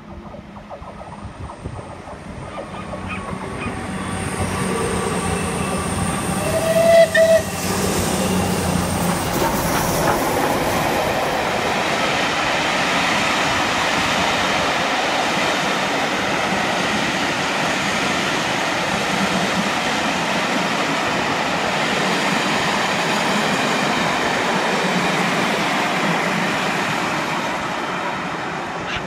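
A passenger train passing close by: a steady rushing rumble of wheels on rail that builds over the first few seconds and holds until it fades near the end. A short, loud warning blast from the train sounds about seven seconds in.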